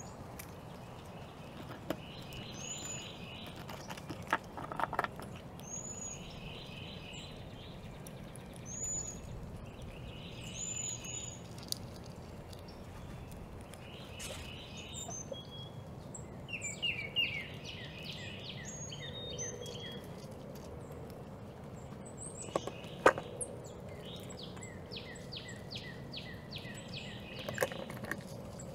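A songbird singing the same short phrase every few seconds: a high note followed by a quick trill. Occasional sharp clicks and knocks come in between, the loudest about 23 seconds in.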